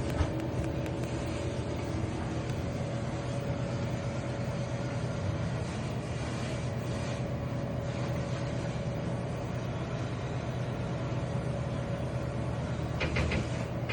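Steady low hum and rumble of background room noise with a faint constant tone. There is one sharp click just after the start and a few quick high pips about a second before the end.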